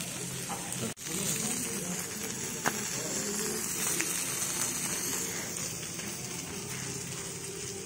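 Sizzler platter hissing and crackling steadily on its hot plate as the food sizzles and gives off smoke, with a brief break about a second in.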